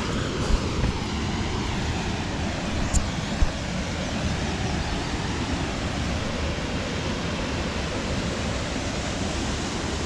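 Waterfall rushing steadily, with a few brief knocks about half a second and three seconds in.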